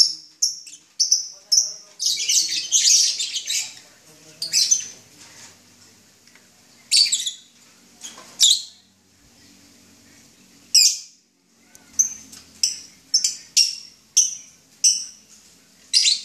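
Lovebirds calling: a string of short, shrill, high-pitched chirps and squawks, some in quick runs with gaps between, and a denser noisy spell of calling early on.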